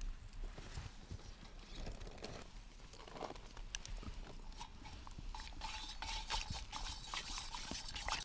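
Metal spoon stirring instant coffee in a metal camp pot, with quick small clinks and scrapes against the pot. The clinks grow busier and louder in the last few seconds.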